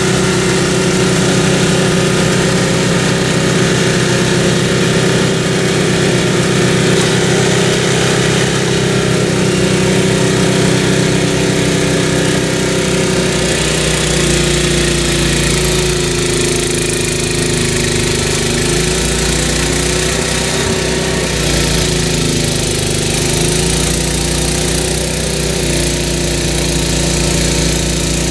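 MTD snowblower's Tecumseh small engine running steadily while it clears heavy wet snow. From about halfway through, the engine note drops lower and wavers.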